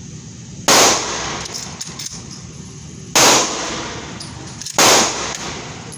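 Three pistol shots, the first about a second in and the other two close together near the end, each with a short ringing echo.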